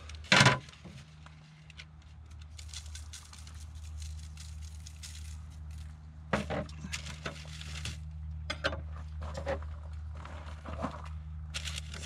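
Baking paper and aluminium foil crinkling and rustling in uneven bursts as fish is wrapped in them by hand, over a steady low hum.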